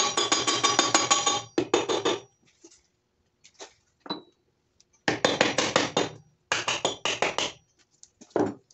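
A wrench clicking rapidly in bursts of about a second, with a ringing metallic tone, as the bolts holding the crankshaft's main bearing caps are run off; a few light metal taps and a knock fall between the bursts.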